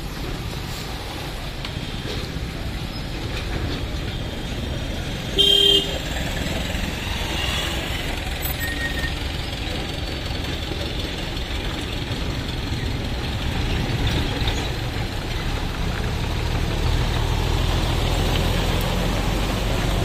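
Road traffic of trucks, cars and motorcycles passing slowly over a rough road, a continuous engine rumble with tyre noise. One short horn blast sounds about five seconds in. A truck's low engine rumble grows louder near the end as it passes close.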